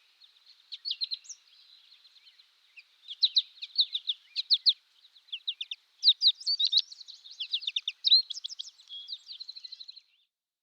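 Goldfinch chirping: quick runs of short, high, sharp notes in bursts with brief pauses between them.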